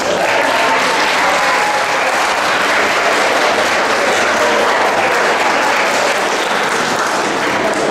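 Audience applauding, steady clapping from many people.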